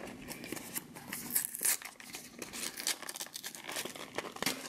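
Small cardboard blind box being opened by hand: irregular crinkling, tearing and scraping of the cardboard flaps, loudest about a second and a half in.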